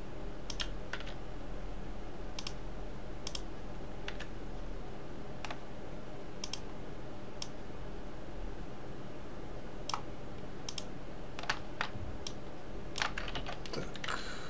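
Computer keyboard keys being pressed as shortcut keys: single clicks spread out at first, then a quick cluster of presses near the end, over a faint steady hum.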